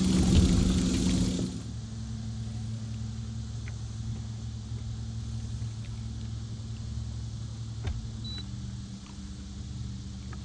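Boat outboard motor running steadily at low speed, a constant low hum. A louder hiss over it cuts off about a second and a half in, and a few faint ticks come later.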